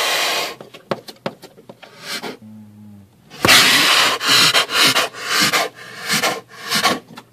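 Black bear panting in quick, loud, noisy breaths, about two a second, in the second half.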